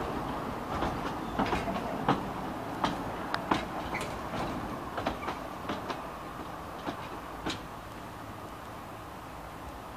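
Narrow-gauge passenger carriages rolling slowly past, their wheels clicking irregularly over the track above a steady rumble. The clicks stop about seven or eight seconds in and the sound fades as the last carriage moves away.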